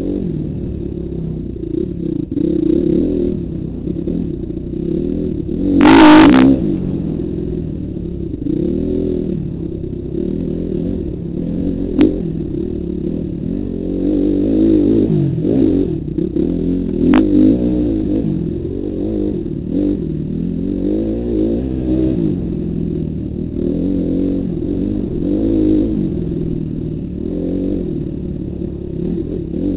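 Dirt bike engine working up a steep off-road climb, its pitch rising and falling as the throttle is worked. There is a short loud burst about six seconds in and a couple of sharp clicks later.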